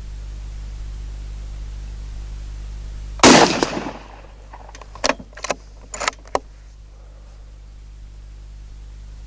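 A single .223 Remington rifle shot from a Howa 1500 mini action bolt-action rifle about three seconds in, with a short ringing tail. About two seconds later come four quick metallic clicks as the bolt is worked to chamber the next round.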